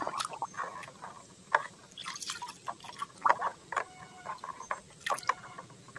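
A hand swishing and splashing in a plastic basin of soapy water, making a string of irregular small splashes and drips.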